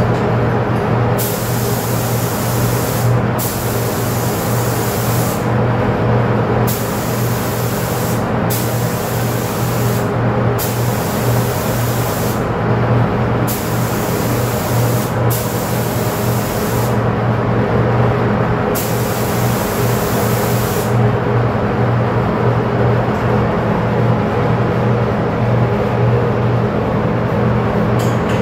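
Compressed-air spray gun spraying a protective coating in about eight short bursts of hiss, each a second or two long, over the steady hum of a spray booth's exhaust fan. The spraying stops about 21 seconds in, leaving only the hum.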